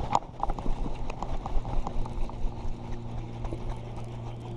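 Irregular hollow knocks and clatter on a plastic fishing kayak, several a second, over a steady low hum.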